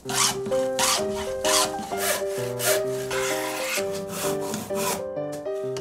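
Hand plane taking shavings off a pine board in a run of quick repeated strokes, about one and a half a second, that stop about five seconds in. Background music with sustained notes plays underneath.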